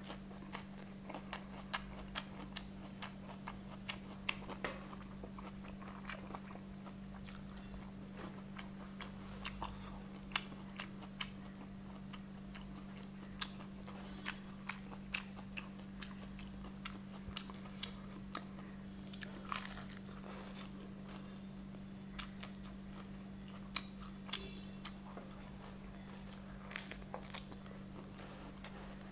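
Close-up chewing and crunching of crispy fried chicken, with many short sharp crunches and mouth clicks, over a steady low hum.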